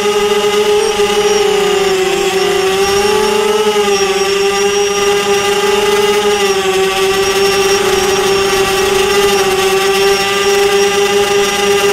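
Small multirotor drone's electric motors and propellers whining steadily, heard close up from the drone's onboard camera; the pitch dips and rises slightly a few times as the flight goes on.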